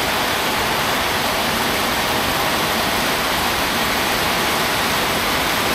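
Heavy tropical rain pouring down in a steady, even rush.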